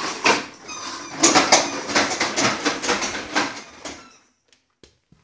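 A toddler's plastic push-along walker toy rattling and clattering on a wooden floor for about four seconds, then it stops, leaving a few faint clicks.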